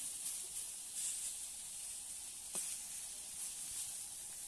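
Chopped vegetables sizzling in oil in a steel kadai as a steel spatula turns them, with a steady high hiss. About two and a half seconds in, the spatula gives one sharp clink against the pan.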